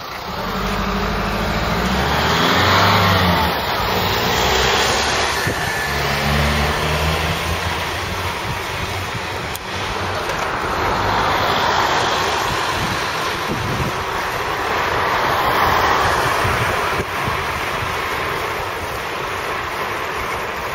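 Road vehicles passing on the street, their tyre and engine noise swelling and fading three times, with wind rumbling on the microphone in the first few seconds.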